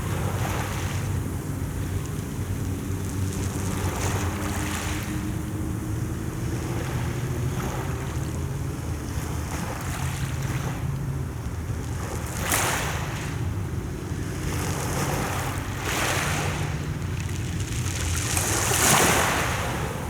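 Sea waves washing in and breaking about every three to four seconds, the biggest near the end, over a steady low rumble of wind on the microphone.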